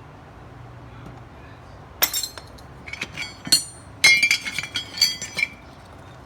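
Metal pieces clinking and clattering: a string of sharp, ringing knocks starting about two seconds in and stopping about three and a half seconds later, over a low steady hum.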